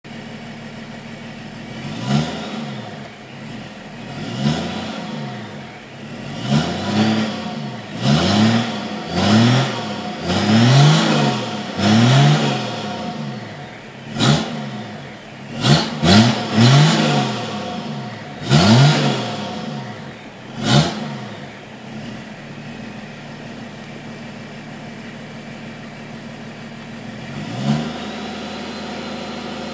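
BMW E30 324d turbo-diesel straight-six being blipped over and over from idle, each rev rising and falling quickly, with the turbo whistling as it spools. It settles back to a steady diesel idle, with one last short blip near the end.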